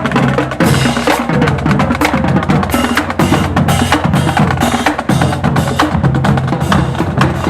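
Loud drum-driven music: bass drum and snare drum hits in a quick, busy rhythm.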